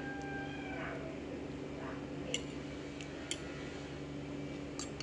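A metal fork clinks against a soup bowl about three times in the second half, over a steady low hum.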